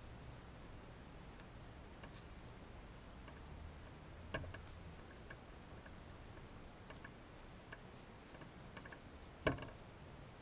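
Faint scattered clicks and light handling of cords being woven by hand, over a low steady hum. One sharper click comes a little before the middle and a louder one near the end.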